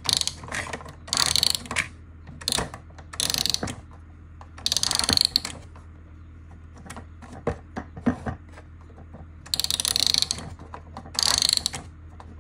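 Clockwork spring of a 1984 Fisher-Price Sesame Street wind-up toy record player being wound by its side knob: bursts of ratchet clicking with each twist, about six of them with short pauses between.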